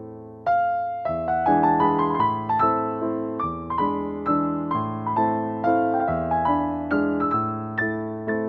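Background music: a piano playing a gentle melody, about two to three notes a second over held bass notes.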